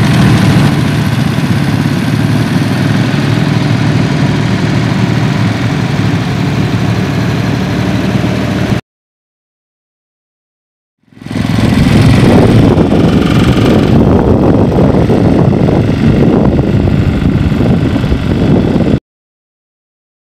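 A small cart's engine running steadily. After a couple of seconds of silence, loud gusty wind noise buffets the microphone.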